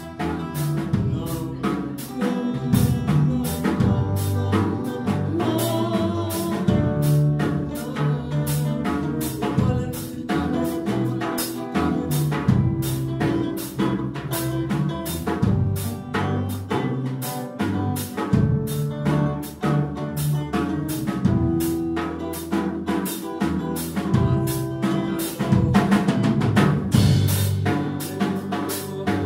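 Live band jamming: a drum kit keeps a steady beat under electric guitars and sustained low bass notes.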